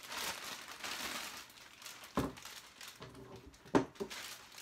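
Clear plastic wrapping crinkling as it is pulled off a tripod, followed by two sharp knocks, about two seconds in and near four seconds.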